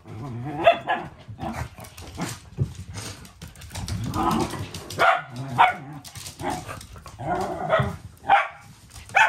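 Two Shetland sheepdogs play-fighting: a run of short, sharp barks and yips, with growls in between.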